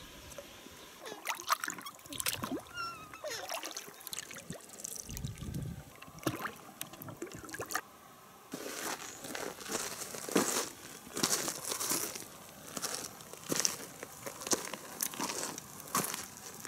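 Water sloshing and lapping around an inflatable boat, with scattered small clicks and knocks. The splashing grows busier about eight seconds in.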